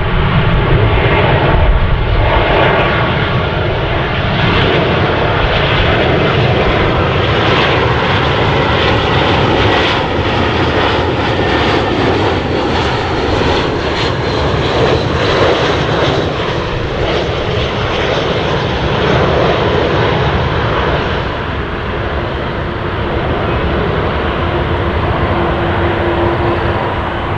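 An Airbus A320-232 landing, its twin IAE V2500 turbofan engines giving a loud, steady jet rumble with a faint whine. The sound eases slightly in the last third.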